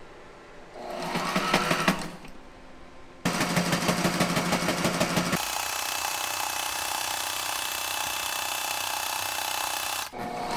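Sailrite sewing machine stitching through heavy fabric: a short run about a second in, a second rhythmic run after about three seconds, then a longer, steadier run that stops just before the end.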